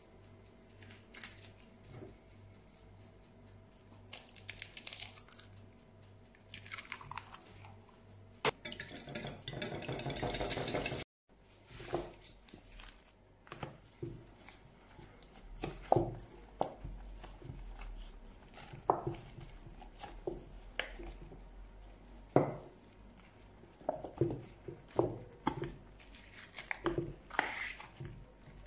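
Gloved hands pressing soft cooked noodles into a silicone doughnut mould and lifting a noodle ring out: soft squishes, rubbery taps and scattered small clicks, with a few sharper knocks.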